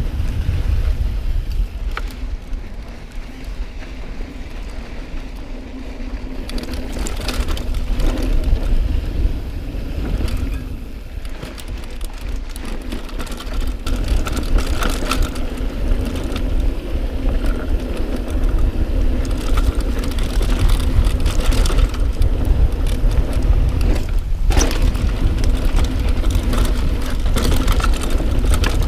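Mountain bike riding over a rough dirt trail: a steady low rumble of wind and tyres on the camera microphone, with repeated rattles and clatters of the bike over rocks and bumps, getting busier in the second half.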